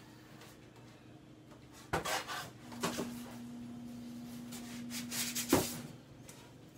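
Polystyrene foam packing inserts scraping and rubbing against a cardboard box as they are lifted out, with knocks about two, three and five and a half seconds in.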